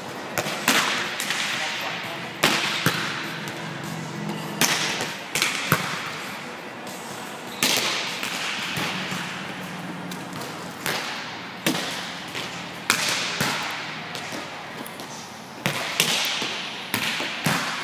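Volleyballs being struck by hand: a coach's hits and the passer's forearm passes. About a dozen sharp slaps come every second or two, often in pairs, each ringing on in a long hall echo.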